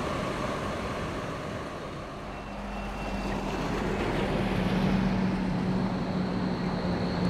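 Electric trams passing along a city street over steady road traffic: a steady whine from the first tram fades about two seconds in, then a Bombardier Flexity tram approaches with a low hum that grows louder.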